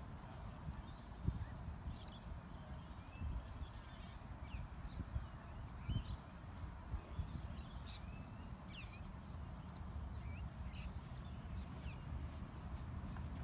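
Wild birds chirping and calling, many short rising and falling chirps throughout, over a steady low rumble.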